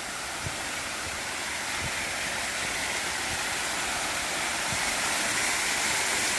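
Waterfall rushing: a steady wash of falling water that grows louder throughout.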